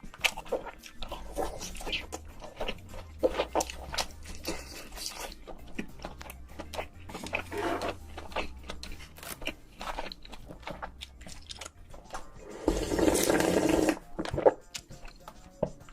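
Close-miked eating sounds: crunchy bites and chewing, a quick run of sharp crackles throughout, with a louder, longer stretch about 13 seconds in.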